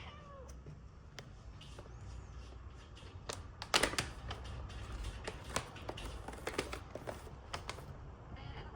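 A kitten licking a hand close to the microphone: its rough tongue rasps in quick, irregular little clicks and wet smacks, thickest through the middle.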